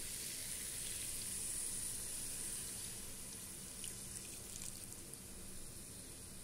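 Coconut milk being poured into a hot pan of chicken masala, a steady pouring and sizzling hiss that eases a little after a few seconds.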